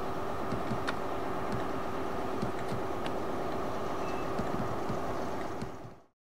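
Diesel locomotive running steadily, with a faint steady tone and scattered light clicks over it, fading out to silence about six seconds in.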